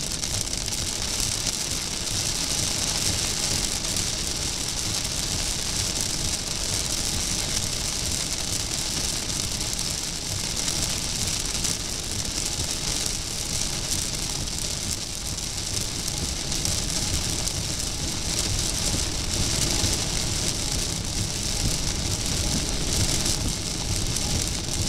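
Heavy rain beating on a car's windshield and roof, with steady road and tyre noise underneath, heard from inside the moving car.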